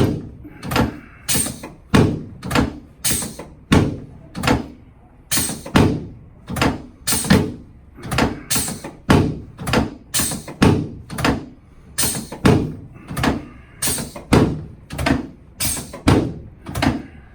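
Steady rhythm of thumps during chiropractic treatment on the table, about three every two seconds.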